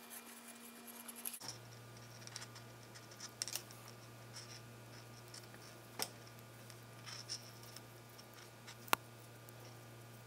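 Nylon paracord scratching and rubbing as it is threaded and worked by hand, with two sharp clicks about six and nine seconds in. A steady low electrical hum runs underneath and drops in pitch about a second and a half in.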